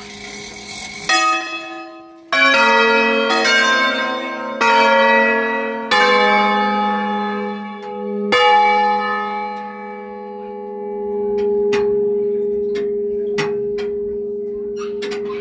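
Church bells of a five-bell concerto tuned in A-flat (Giorgio Pruneri, 1907), heard close up from inside the bell chamber. About six strokes come roughly a second apart in the first eight seconds, then the bells ring on and slowly die away, with a few light knocks near the end.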